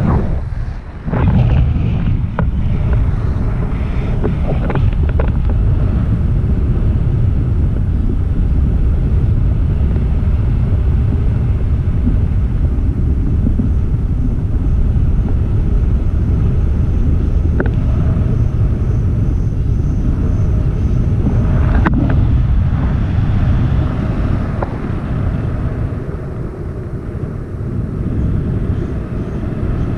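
Wind rushing over the microphone of a pole-held action camera during paraglider flight: a steady, loud low rumble. A few knocks come in the first seconds, and there is one sharp click past the two-thirds mark.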